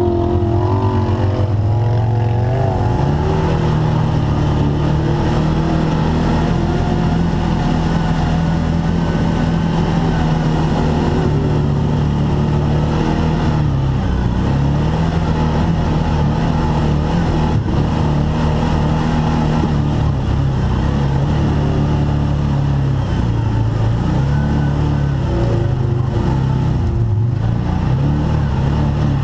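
Engine of an Arctic Cat Wildcat side-by-side running under way. Its pitch steps up about two seconds in, then holds fairly steady with a few short dips as the throttle eases and comes back on.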